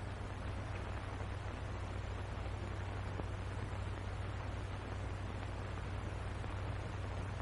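Steady hiss with a low, constant hum from an old film soundtrack, with no other sound.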